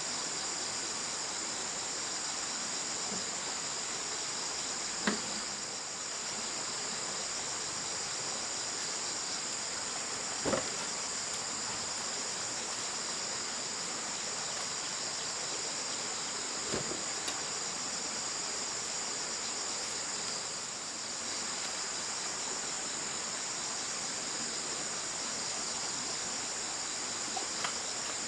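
Steady, high-pitched chorus of insects such as crickets, trilling without a break. A few short knocks sound over it, the plainest about 5, 10 and 17 seconds in.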